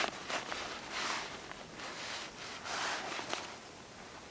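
Fabric bag being handled and pulled open, rustling in several swishes, with a couple of light clicks.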